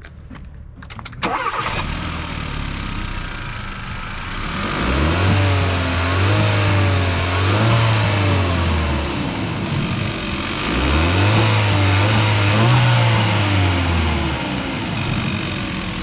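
A 2020 Hyundai Elantra GT N Line's 1.6-litre turbocharged four-cylinder, breathing through a newly fitted AFE Takeda cold air intake, starts about a second in and settles to idle. It is then revved twice, each rev rising and falling over about four seconds.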